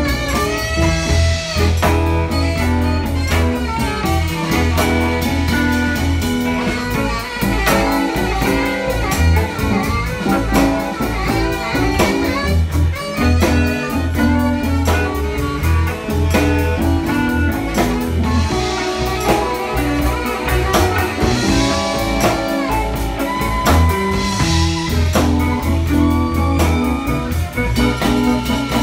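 Live band playing an instrumental funky blues-jazz groove: saxophone, electric guitar and drum kit over a steady bass line.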